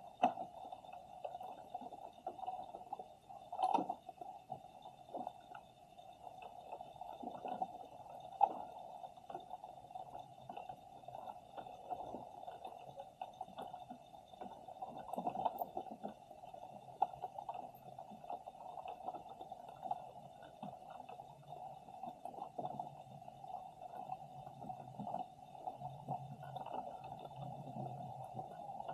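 Muffled underwater ambience picked up by a submerged action camera's microphone: a steady low rumble with irregular faint clicks and knocks, and two faint steady high tones.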